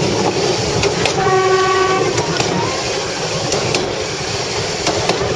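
Myanmar Railways railbus running along the track with a steady rumble and occasional wheel clicks over rail joints. About a second in, a horn sounds once, a short blast of under a second.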